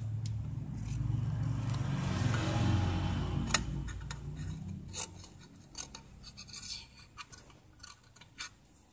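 An old overlock sewing machine's motor hums steadily for the first four seconds or so, then fades away. After that come only small clicks and rubbing as the thread and tension parts are handled.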